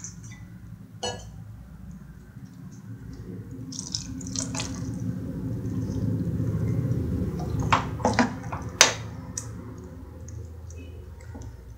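Water poured into an aluminium pressure cooker pot of curry, splashing as it fills and growing louder midway. A few sharp metallic clinks come about two-thirds of the way through.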